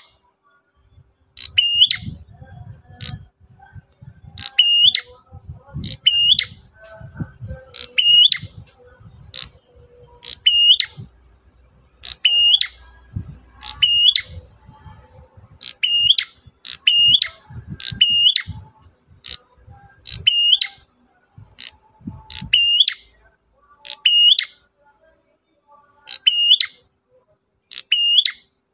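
Prenjak merah calling over and over: short, sharp, high whistled notes, often doubled, repeating about once a second. Low rumbling knocks run underneath until near the end.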